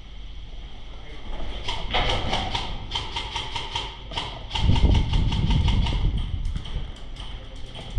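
Airsoft gun firing long rapid bursts, a steady string of shots with a mechanical whine under them, in two runs with a short break about four seconds in. A low rumble joins the second run.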